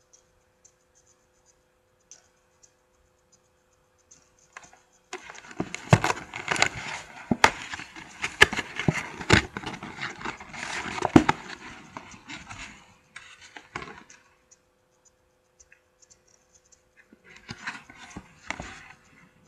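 A paper takeout bag and box being handled and unpacked: paper rustling and crinkling with sharp crackles. It starts about five seconds in, dies away a few seconds later, and starts again near the end.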